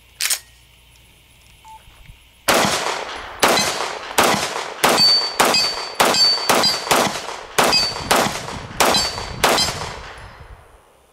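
Grand Power K100 MK12 9mm pistol fired at a steady pace, about a dozen shots from a couple of seconds in, each with a short echo. After several shots comes a brief high ring, typical of bullets striking a steel plate downrange. A single sharp click comes just after the start.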